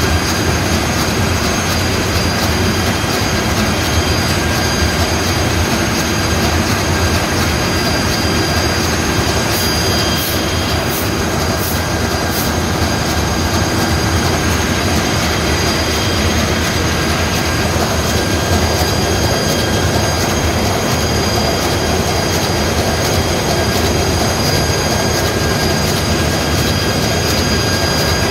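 Marine diesel engine running steadily: a loud, constant mechanical din with a steady high-pitched whine over it.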